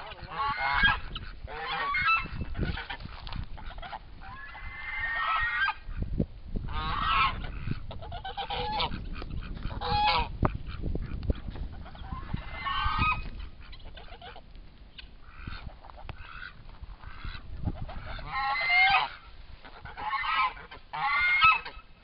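A flock of domestic geese honking in repeated bursts, several birds calling over one another, with short pauses between the bouts.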